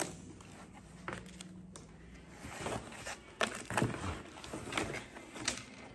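Light rustling and scattered soft taps and clicks of packaging being handled inside a cardboard box.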